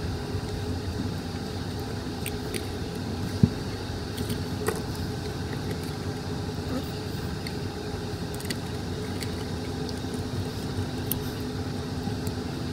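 Small screwdriver driving screws into a finned aluminium controller case, giving a few light clicks and ticks, one sharper click about three and a half seconds in, over a steady background rumble.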